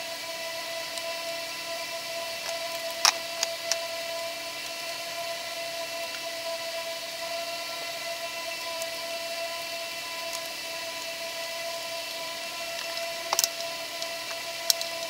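A few sharp clicks and clinks of hardware being handled on the engine, a cluster about three seconds in and two more near the end, over a steady hum with several held tones.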